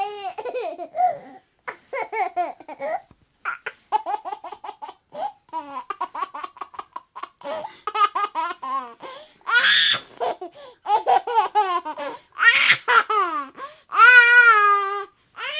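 Baby laughing in repeated bouts of quick, high-pitched giggles, broken by a few longer squealing laughs that fall in pitch, the loudest near the end.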